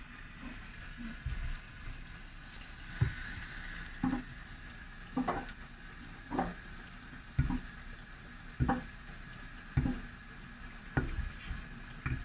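Whirlpool washing machine in its main wash: the drum turning with laundry and water sloshing, a regular thud-and-splash about once a second as the load falls.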